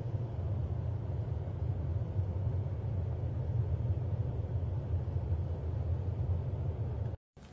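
Steady low rumble of a car heard from inside the cabin, engine and road noise with a fainter hiss above it, cutting off suddenly near the end.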